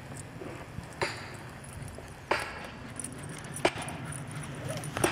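Four sharp clicks, evenly spaced about a second and a half apart, over a steady low outdoor background noise.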